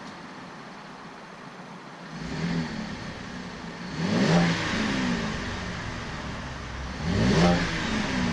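Holden VE SV6's V6 engine idling through its standard rear mufflers, heard at the exhaust tip, then revved three times, each rev rising and falling back. The first rev is short and lighter; the second and third are the loudest.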